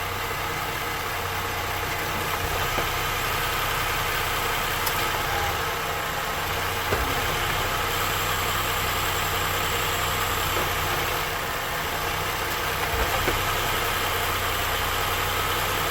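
2013 Ford Edge's 3.5 L V6 idling steadily, on a freshly replaced transmission torque arm. A couple of faint knocks come about seven and thirteen seconds in.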